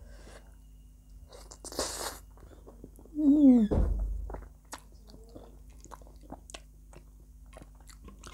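Close-miked mouth sounds of eating instant pasta noodles: a short slurp about two seconds in, a loud hummed "mmm" just after three seconds, then soft wet chewing clicks.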